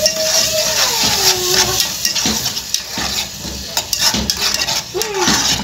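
Onion and garlic sizzling in oil in a small aluminium saucepan while crushed tomato is scraped in from a plastic cup with a spoon, the spoon clicking repeatedly against cup and pan. A drawn-out falling squeak sounds near the start, and a shorter one near the end.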